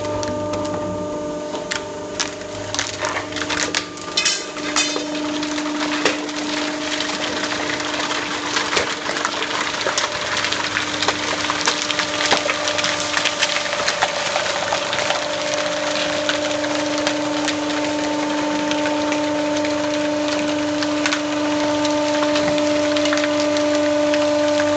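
Vertical hydraulic baler running, its pump giving a steady hum while the press compresses PET plastic bottles, which crackle and pop as they are crushed, most densely in the first half.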